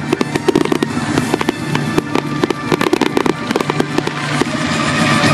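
Fireworks display: aerial shells bursting in rapid, dense bangs and crackles several times a second, over music. Near the end the sharp reports thin out into a steadier crackling hiss.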